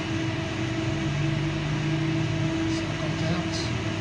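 Vibration-test shaker running, with the grism fixture mounted on it: a steady mechanical hum with a held low tone and a low buzz that swells and eases.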